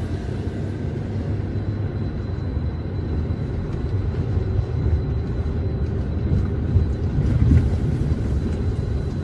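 A steady low rumble, with a faint high steady tone through it that fades out about two-thirds of the way in.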